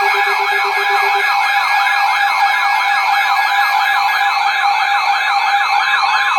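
Emergency alert attention tone: a loud electronic warble sweeping up and down about three to four times a second over steady held tones. A low pulsing beep under it stops about a second in.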